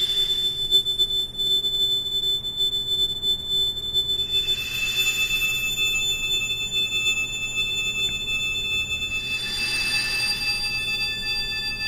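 A recording of three small chimes, stretched ten times with Paulstretch, plays back as a slow drone of long-held high ringing tones. A new cluster of chime tones swells in about four seconds in, and another about nine seconds in.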